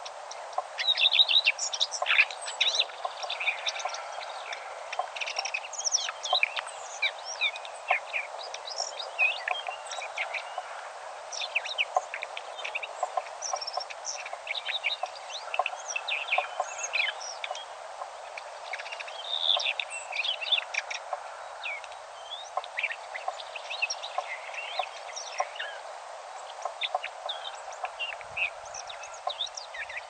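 Dawn chorus of several songbirds singing at once: overlapping chirps and short song phrases throughout, over a steady background hiss.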